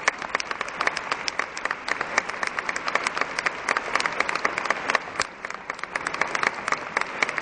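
Audience applauding: a dense run of scattered handclaps that eases off a little about five seconds in.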